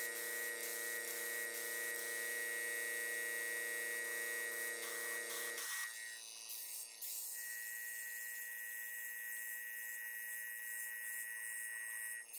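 Airbrush air supply humming steadily with a hiss of air as black paint dots are sprayed onto foam. The hum thins about six seconds in.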